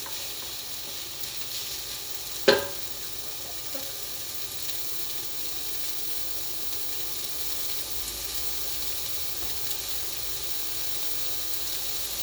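Stir-fried noodles and mushrooms sizzling steadily in a hot pan. A single sharp knock, the loudest sound, comes about two and a half seconds in.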